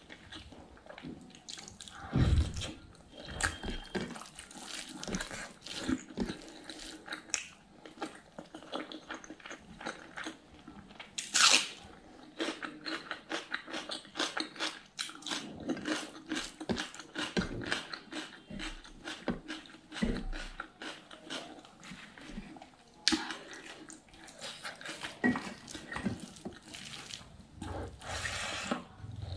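Close-miked chewing and wet mouth sounds of someone eating rice and pork innards curry by hand, with many small smacks and clicks. A louder crunchy bite comes about eleven seconds in, as a piece of raw red onion is bitten.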